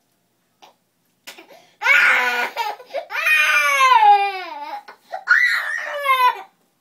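A toddler wailing at getting a shot: after nearly two seconds of quiet, three loud cries that slide down in pitch.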